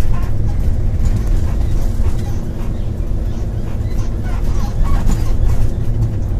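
Steady low rumble of a vehicle driving on the highway: road and engine noise.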